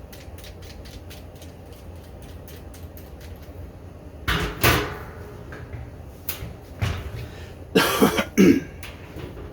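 Hand rivet nut tool fitting a rivet nut into a steel drum: a string of light metal clicks as it is worked, then two louder, harsher crunches about four and eight seconds in.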